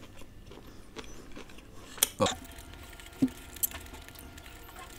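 A metal spoon clinking and tapping against a plate as food is scooped, a few short, light clicks over a quiet background.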